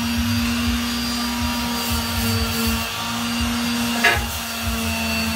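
A handheld electric sanding tool runs steadily with a motor hum while sanding rust off a steel truck step rail. There is one sharp knock about four seconds in.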